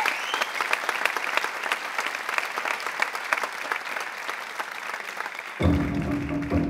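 Audience applauding, a dense steady patter of many hands clapping. Near the end, music with a steady low tone and percussion starts suddenly.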